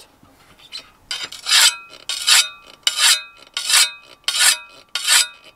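A sharpening stone scraping along the edge of a steel spade blade in quick, even strokes, about one and a half a second, starting about a second in. Each stroke is a short rasp with a faint metallic ring from the blade.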